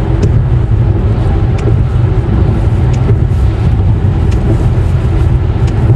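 Car driving, heard from inside the cabin: a steady low rumble of road and engine noise.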